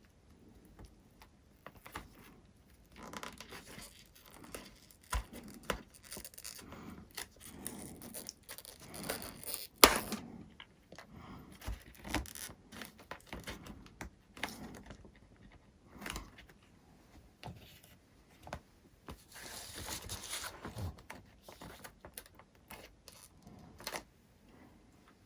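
Workbench handling noises as parts of a foam RC plane are worked on by hand: irregular scraping, rustling and tearing with scattered clicks and taps, and one sharp knock about ten seconds in.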